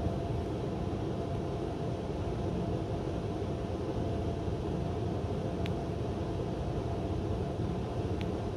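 Hotel air conditioner running close to the microphone, a steady low whoosh with a thin steady hum through it, since the camera sits on top of the unit. Two faint ticks come in the second half.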